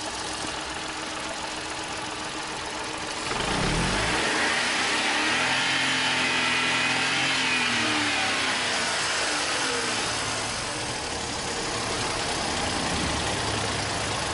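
Opel Corsa B's freshly installed three-cylinder Ecotec engine idling, then revved once about three seconds in. The revs climb smoothly and fall back to idle a few seconds later. The engine is running well.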